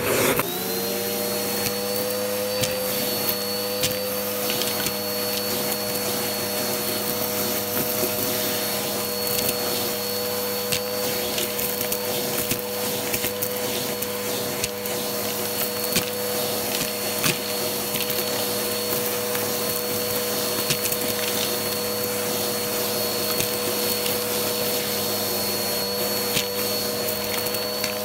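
Vacuum cleaner running steadily through a crevice tool, a constant whine that settles in pitch just after the start. Frequent small clicks and crunches run over it as bits of debris are sucked up off the carpet.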